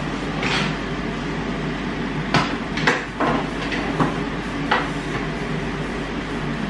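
Metal oven tray clanking as it is lifted out of an electric oven and set on the stovetop, and the oven door shut: a handful of sharp metal knocks and clatters over a couple of seconds, over a steady low hum.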